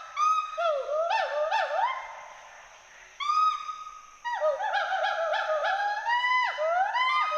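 Two western hoolock gibbons calling in a rapid series of whoops, each rising and falling in pitch, their voices overlapping. The calling thins out about two seconds in and picks up again, densely, about four seconds in.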